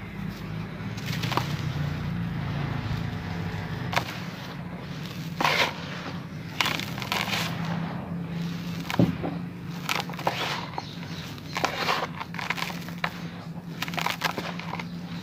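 Lumps of dry dirt crushed by hand, crumbling with irregular crunches and crackles as the crumbs and powder pour into a metal basin. A steady low hum runs underneath.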